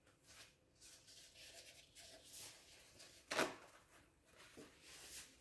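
Faint rubbing and handling noise from a whiteboard being wiped, with one sharp tap about three and a half seconds in.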